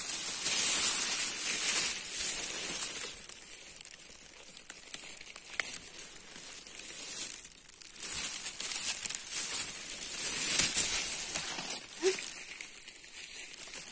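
Rustling and crackling of forest-floor litter and undergrowth, coming in several surges, as someone moves through it.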